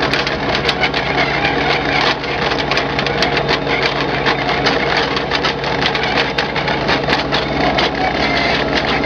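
Tractor pulling a drainage tile plow through the ground: a steady engine drone under a busy, irregular crackle of soil and crop stubble breaking around the plow boot as it lays drain tubing.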